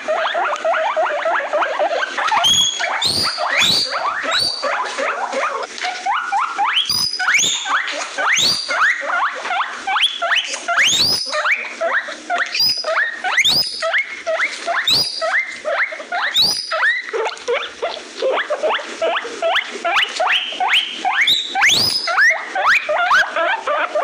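Guinea pigs wheeking: a continuous string of loud, high squeals that sweep upward in pitch, overlapping one another, with rapid short chattering squeaks in between. This is the call guinea pigs make to seek attention or food.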